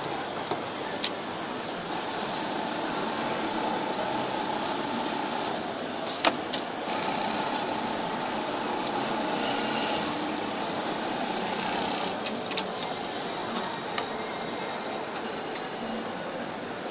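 Automatic jeans-pocket ironing and sewing machine running: a steady mechanical whir, a little louder through the middle, with scattered sharp clicks, the loudest about six seconds in.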